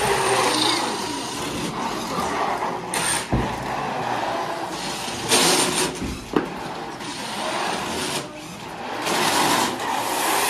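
An FRC competition robot driving on carpet, its motors whining over a constant mechanical noise. A little past halfway there is a louder rush as its shooter launches a foam ring, with a few sharp knocks along the way.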